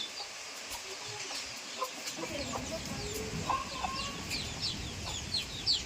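Wind rumbling over the microphone while birds chirp rapidly in short, high, falling notes that crowd together toward the end.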